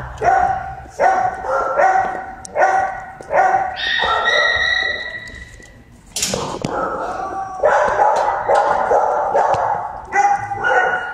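Dogs barking in shelter kennels, short barks coming about once or twice a second. A longer drawn-out call comes about four seconds in, and a sharp knock comes near the middle.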